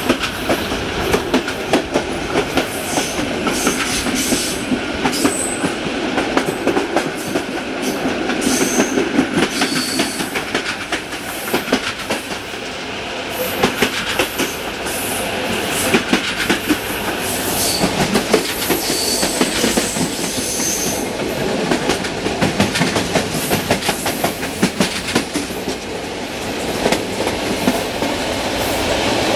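Passenger train running along the track, heard from an open door: a steady rush of wind and rolling noise with wheels clicking over rail joints, and brief high squeaks from the wheels now and then.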